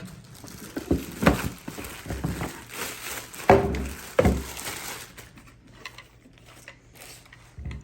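Plastic parts of a pet water fountain being handled and set down: a few sharp knocks with some rustling, the loudest about three and a half seconds in.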